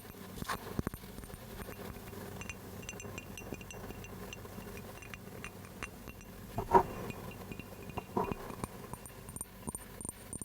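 Light, close-miked taps and clinks on small hard objects, some leaving a brief faint ring. They are irregular, with one louder clink about two-thirds of the way through and another shortly after.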